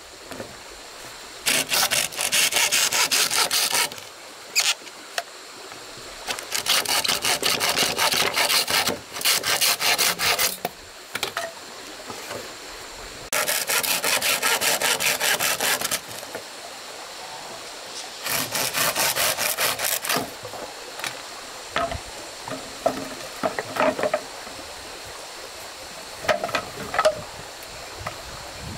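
A hand saw cutting through wood in four bouts of quick back-and-forth strokes, with short pauses between them. Scattered light knocks and clicks follow near the end.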